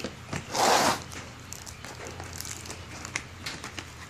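Handling noise on a plywood workbench: one short rasping scrape about half a second in, then scattered light clicks and taps.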